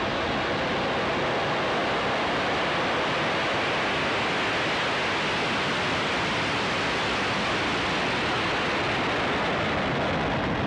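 Falcon 9 first stage's nine Merlin engines at liftoff: a steady, dense rushing noise that holds an even level throughout.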